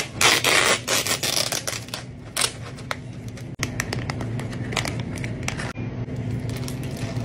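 Sealed film lid peeled off a plastic cup of ice, a loud ripping noise at the very start. It is followed by crinkling and tearing of a plastic drink pouch being opened, and the drink poured over ice near the end.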